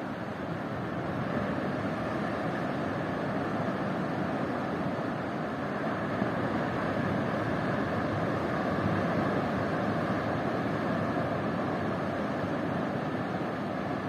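Ocean surf breaking and washing up onto a beach: a steady, continuous rush of waves that swells slightly after the first couple of seconds.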